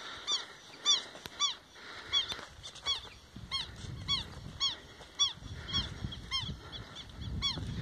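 A bird calling over and over: a steady series of loud, harsh honking yelps, each rising then falling in pitch, just under two a second.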